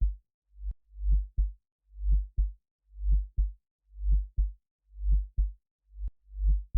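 Low heartbeat sound effect, beating in lub-dub pairs about once a second: a swelling deep thud followed at once by a shorter, sharper one, with silence between beats. A thin click sounds twice, about a second in and near the end.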